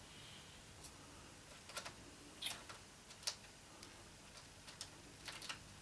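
Faint, light clicks and taps at uneven intervals as fingers handle a small N gauge model locomotive on the track. The two sharpest clicks come about two and a half and three and a quarter seconds in.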